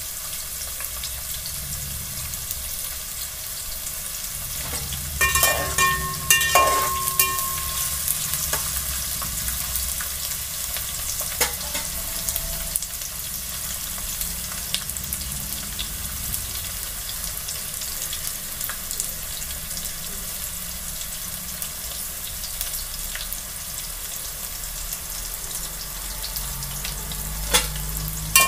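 Sliced onions sizzling steadily in hot refined oil in a metal pot, frying to a light brown. A few metallic clinks with brief ringing come about five to seven seconds in, and a slotted spoon knocks against the pot near the end as it stirs.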